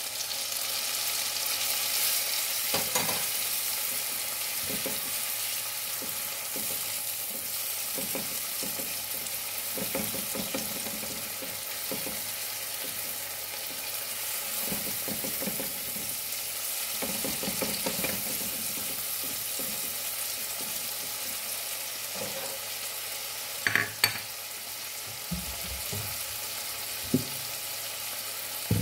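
Chopped onion and vegetables sautéing in oil in a nonstick frying pan, with a steady sizzle. A silicone spatula stirs and scrapes the pan at irregular intervals. A few sharp knocks come near the end.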